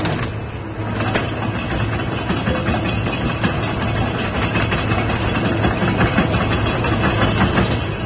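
Komatsu PC220 hydraulic excavator's diesel engine running steadily, a low even hum with a faint clatter over it.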